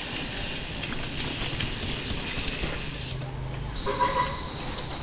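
Steady road and wind noise from a mountain bike being ridden on pavement: tyres rolling and air rushing past the handlebar-mounted camera. A brief pitched sound stands out about four seconds in.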